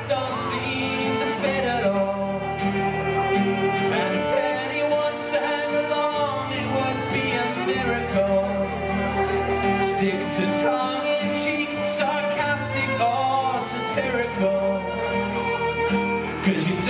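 Acoustic guitar strumming steadily while a fiddle plays a bowed melody over it, an instrumental break in a live folk song.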